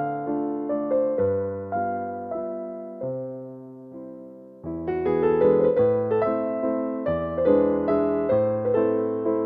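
Background piano music of gently played chords and melody. About three seconds in, a held chord dies away, and the playing picks up again near five seconds.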